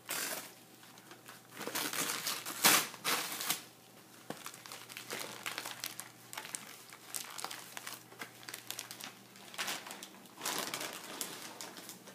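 Gift wrapping paper crinkling and tearing in irregular bursts as a small child rips it off a present, the loudest rip a little under three seconds in.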